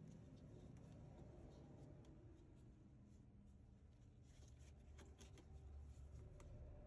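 Near silence: a faint low hum, with a few faint clicks and scrapes about four to five seconds in.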